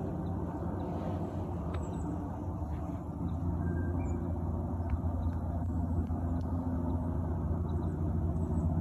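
A motor vehicle engine running steadily, a low rumble with a constant hum, growing slightly louder about three and a half seconds in.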